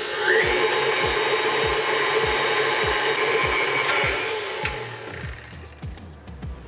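KitchenAid Artisan stand mixer running at medium-low speed, its paddle beating an egg into choux pastry dough. The motor whirr winds down and stops near the end.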